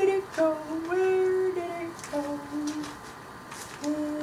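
A woman humming a slow tune to herself in long held notes, with a short break about three seconds in.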